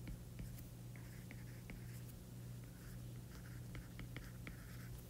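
Stylus handwriting on a tablet's glass screen: a string of faint ticks and short scratches as letters are written, over a steady low hum.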